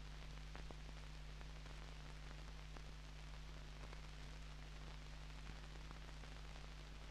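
Faint steady hiss and low hum from an old film soundtrack, with scattered small clicks and crackles.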